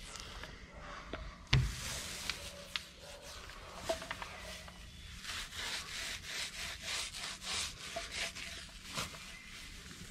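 Paint roller rubbing anti-fouling paint onto a sailboat's hull in quick back-and-forth strokes, a soft rhythmic scrubbing hiss, with the strokes strongest in the second half. A single sharp knock sounds about one and a half seconds in.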